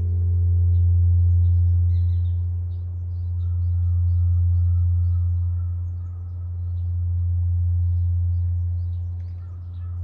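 Zojoji Temple's great Japanese temple bell humming on after a strike of the morning bell, a deep hum that swells and fades in slow pulses about every three seconds, its higher ring dying away in the first two seconds. Small birds chirp throughout.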